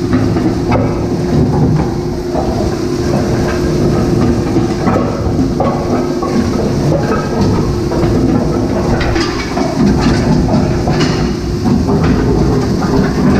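Zerma ZCS 600 shredder-granulator combination running loaded with solid plastic purge lumps: a steady machine hum with irregular knocking and crunching as the shredder rotor bites into the purges.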